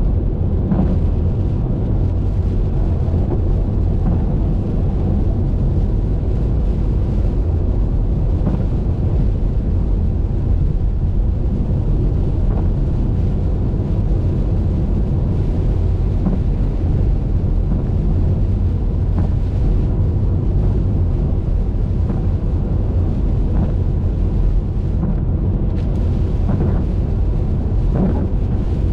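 Steady low rumble of a car driving at highway speed in the rain: road and wind noise, with a few faint clicks scattered through it.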